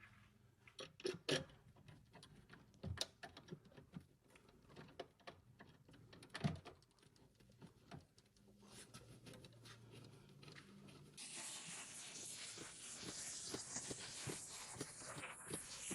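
Faint clicks and light knocks of small metal hardware being handled while screws are driven by hand into a door-mounted panic device. About eleven seconds in, a steady faint scraping starts and keeps going.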